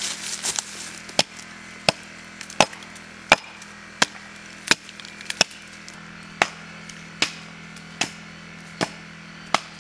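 A steady run of about a dozen sharp blows from a hand tool striking, roughly one every three-quarters of a second, over a low steady hum.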